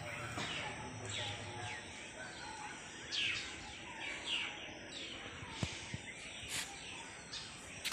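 Birds calling in the open, a few short falling chirps, over a steady background of outdoor ambience. There are two faint clicks a little over two thirds of the way through.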